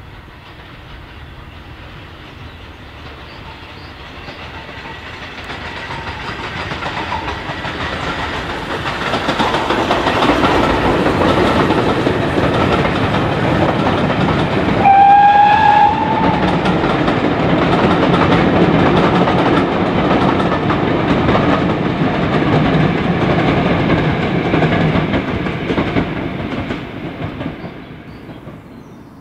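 A steam locomotive hauling a train approaches and passes, its running growing louder, holding for several seconds, then fading away. About halfway through there is one short steam whistle blast, lasting about a second.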